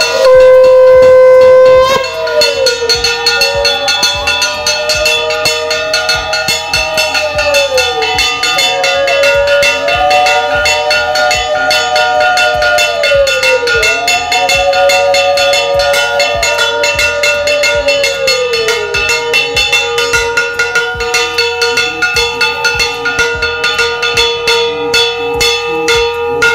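A conch shell blown in one long steady note, with a hand bell rung rapidly alongside it from about two seconds in. A second wavering note rises and falls over them several times during the first two-thirds, then fades, leaving the conch and bell.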